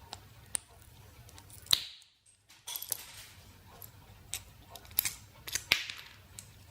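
Hand tools clicking and scraping against a flashlight's aluminium head as its plexiglass lens is pried out: scattered small sharp clicks, the loudest a little under two seconds in, with a brief moment of dead silence just after it.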